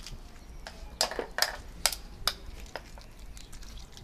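Knife cracking and prying open snail shells over a bowl of snails: a run of irregular sharp clicks and cracks, the loudest about a second in.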